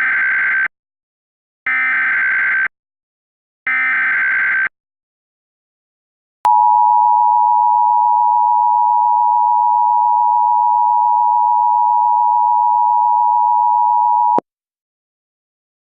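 Emergency Alert System SAME header: three one-second bursts of screeching digital data tones, about a second apart. After a short pause comes the EAS attention signal, a steady two-tone 853/960 Hz alarm held for about eight seconds, which cuts off abruptly.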